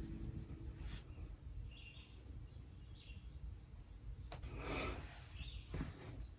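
Faint short bird chirps, one every second or so, from the animated film's soundtrack playing on a laptop, with a breath near the middle.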